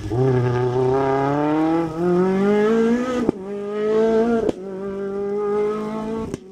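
Rally car's engine accelerating hard away through the gears. Its pitch climbs, then drops at each upshift, with a sharp crack at the later shifts, and it grows fainter as the car pulls away.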